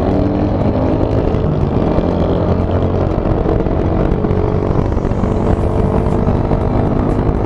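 Motorcycle engine running at a steady pace in traffic, with heavy wind noise buffeting the microphone.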